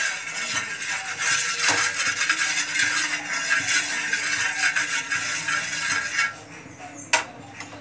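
Water sizzling on a hot tawa (flat griddle pan) as its surface is wiped over by hand: a steady, loud hiss that stops about six seconds in, showing the tawa is hot enough for the batter. A single sharp clink comes near the end.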